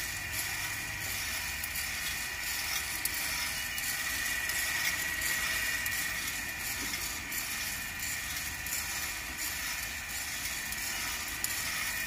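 KAKA G400 drum coffee roaster running early in the roast: the stainless-steel drum turning with green coffee beans tumbling and rattling inside, over a steady hiss and a steady high whine.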